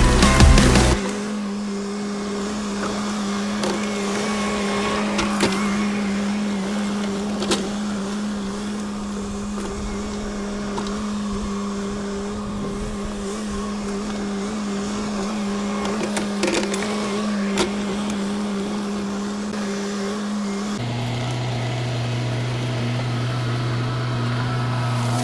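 Skid steer engine running at a steady speed, its pitch dropping suddenly to a lower, steady note near the end, with a few sharp knocks along the way.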